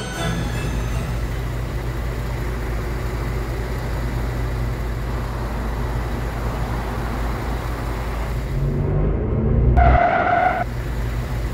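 Bus engine running with a steady low rumble, growing louder about eight seconds in. Then a loud bus horn blasts for about a second and a half.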